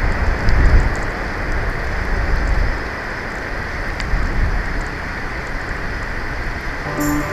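Wind buffeting an outdoor nest-camera microphone: a steady rushing noise with low rumbling gusts, heaviest in the first second. Music starts just before the end.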